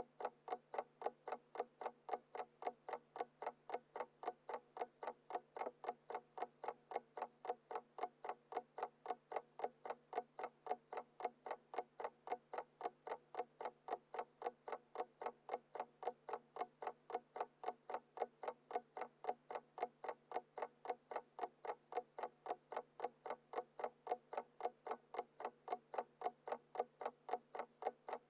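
Alarm clock ticking: fast, evenly spaced, sharp ticks, several a second, going on steadily without a break.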